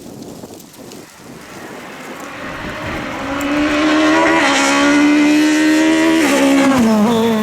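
Rally car engine coming closer at speed, growing louder over the first few seconds and holding a high steady note at full throttle, then dropping in pitch in two steps near the end.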